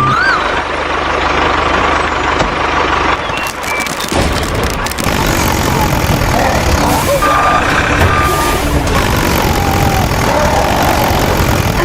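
Dense, steady machine noise, with a low hum under it for the first four seconds and two short steady beeps about seven and eight seconds in.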